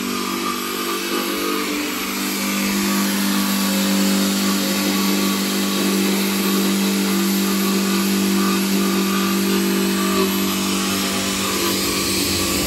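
A motor running steadily at constant speed, a level hum with a hiss over it.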